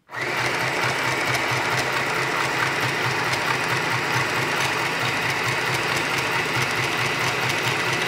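Easymaxx compact electric sewing machine starting up and stitching through denim at a steady speed, its needle mechanism beating fast and evenly.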